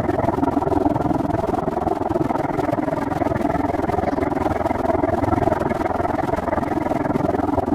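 Steady rushing wind and rolling road noise of a bicycle ride, even in level throughout.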